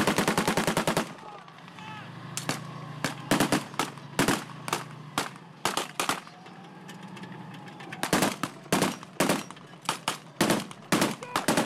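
Blank gunfire in a mock battle: a rapid burst of automatic fire lasting about a second, then scattered single shots and short bursts through the rest.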